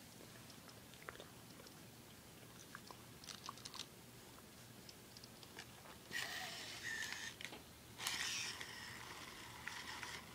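Sony Aibo robot dog handled and moving: scattered small mechanical clicks from its joints, then two stretches of whirring and scraping about six and eight seconds in.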